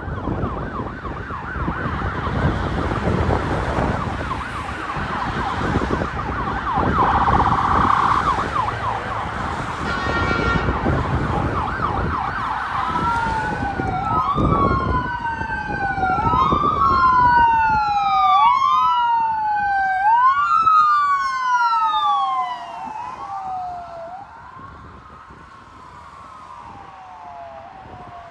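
Ambulance siren on a code 3 run: a fast yelp over traffic rumble, cut by a short horn blast about ten seconds in, then a slow rising-and-falling wail about every two seconds that fades as the ambulance moves away.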